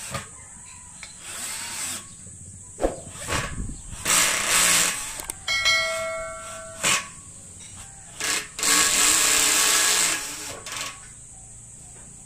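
Cordless drill driving screws through rubber feet into a steel square-tube frame, run in about six short bursts with pauses between. A brief high squeal comes about six seconds in.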